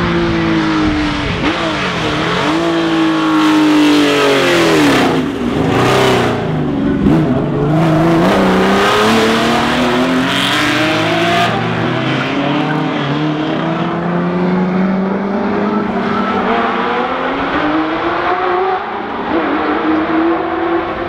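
Classic Ford racing cars, Capri RS and Escort RS widebody, accelerating hard past one after another. Loud engines rev up through the gears, and the pitch drops as each car goes by.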